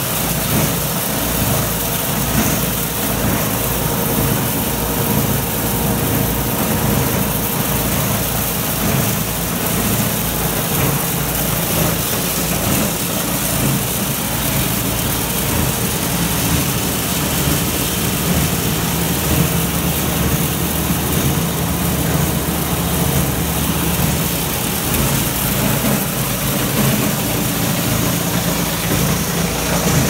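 Coaxial-cable processing machinery running: a loud, steady mechanical drone with a constant hum and hiss.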